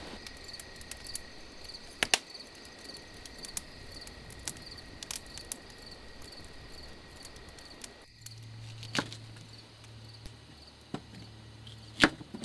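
Crickets chirping in a steady pulsing chorus, with sharp crackles and pops from a wood fire burning in a metal fire pit. About two-thirds through, a low steady hum sets in, and near the end a knife chops sharply through food onto a wooden cutting board.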